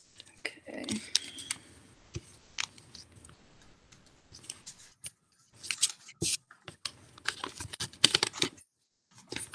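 Paper being folded and creased by hand: irregular bursts of rustling and crisp crackling clicks, with short silent gaps between them.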